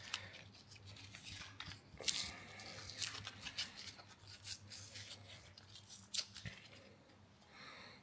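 Faint clicks and light rustling as a Supra MK4 door handle assembly wrapped in blue tape is handled and worked with needle-nose pliers. A few sharper clicks stand out, one about two seconds in and one about six seconds in.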